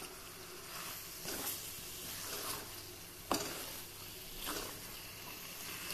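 Raw chicken pieces sizzling in hot oil in a pan as they are stirred and turned with a wooden spatula: a steady fine sizzle with soft scraping strokes about once a second and one sharper knock of the spatula just past halfway.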